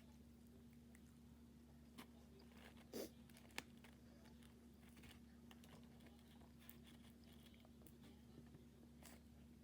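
Faint eating sounds: a person chewing and biting food, with a few soft clicks and a brief louder crunch about three seconds in, over a low steady hum.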